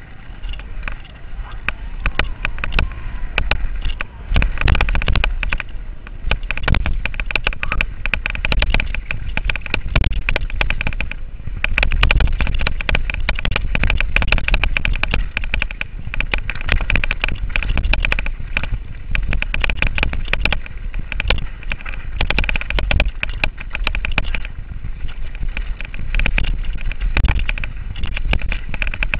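Giant Reign 1 full-suspension mountain bike descending a rough dirt single track at speed: a steady stream of rapid rattles and knocks from the bike over a low rumble of tyres on the ground.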